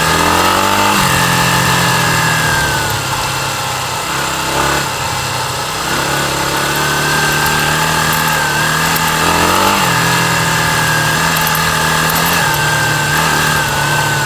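Kawasaki KLR250 single-cylinder engine running under way on a dirt trail at fairly steady revs. It rises briefly in pitch about a second in, near five seconds and near ten seconds, and drops back each time.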